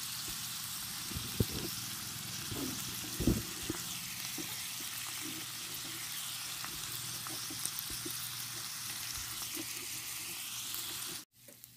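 Chopped meat sizzling as it fries in a metal wok, a steady hiss, with two knocks of stirring, the louder about three seconds in. The sizzle cuts off suddenly near the end.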